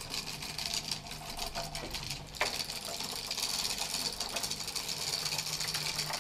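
UGears wooden mechanical tram model running along its toothed wooden rack rail on its wound rubber-band motor: a rapid, even clatter of wooden gears meshing with the rail teeth. There is one sharper click about two and a half seconds in.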